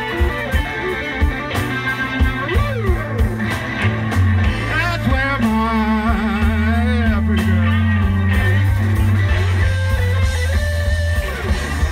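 Live blues band playing an instrumental passage of a slow blues: a lead electric guitar with bent, wavering notes over steady bass and drums.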